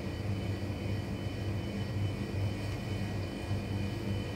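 A steady low machine hum with a faint high whine above it.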